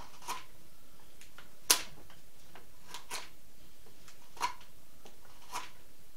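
Carving knife taking short splitting cuts into the pine bill of a duck decoy. Each cut gives a brief, sharp crack of a wood chip splitting off. There are about five cuts at uneven intervals, the loudest nearly two seconds in.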